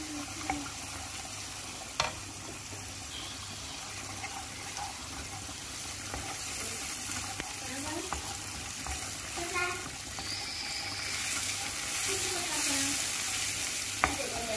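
Onion and tomato paste sizzling in oil in a non-stick frying pan as a wooden spoon stirs them; the sizzle grows louder about halfway through. A couple of sharp knocks of the spoon against the pan.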